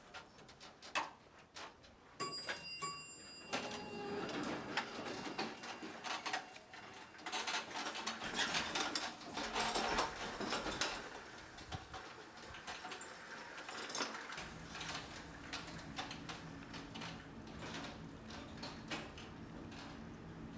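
Scattered knocks and clicks of movement and handling, with a short beeping tone about two seconds in. A steady low hum comes in at about fourteen seconds.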